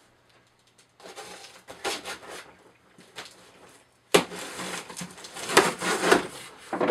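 A cardboard box being opened by hand, with scraping and rustling of cardboard and packing. A sudden loud crack comes about four seconds in, followed by steady handling noise.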